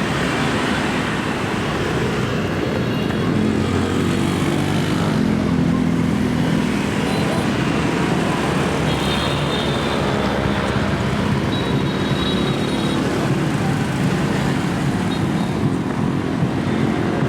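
Dense street traffic of many motorbikes running steadily, with a few brief high tones sounding near the middle.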